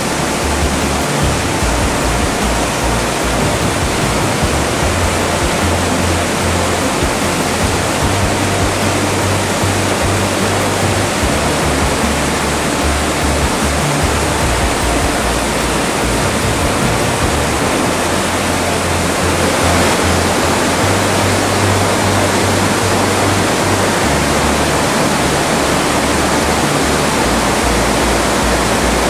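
The Pioverna torrent, swollen by storm rain, rushing and crashing down a waterfall through a narrow rock gorge: a loud, steady rush of water. Background music with a low bass line runs underneath.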